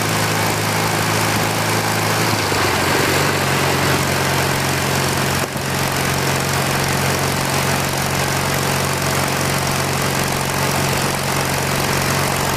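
1981 BMW R65's air-cooled flat-twin engine running steadily while riding, under a heavy rush of wind and road noise. The engine note steps up slightly between two and three seconds in.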